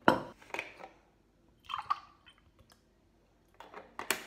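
Chocolate soya milk poured from a cardboard carton into a tall drinking glass: a few short glugs and splashes, with clicks and knocks of the carton and glass being handled near the start and near the end.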